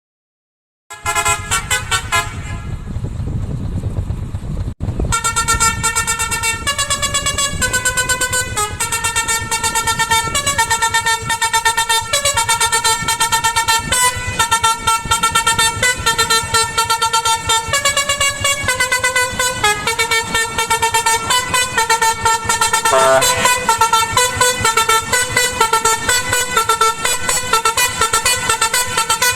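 Lorry's musical telolet horn playing a tune of held notes that step quickly from pitch to pitch, starting about a second in, with a brief break just under five seconds in.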